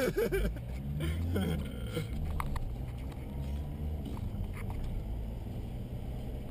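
Steady low drone of a car's engine and road noise heard from inside the cabin while driving, with a little talk and laughter in the first couple of seconds.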